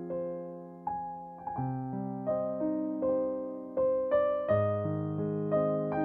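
Background piano music: slow notes and chords struck one after another, each fading before the next.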